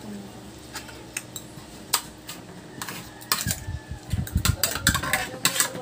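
Metal spoons and forks clinking and scraping on stainless steel divided meal trays, a few scattered clicks at first, then quick, frequent clatter from a little past halfway.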